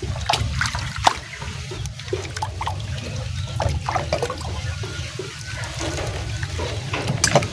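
Water trickling and splashing as spinach leaves are washed by hand, in irregular small splashes, over a steady low rumble of wind on the microphone.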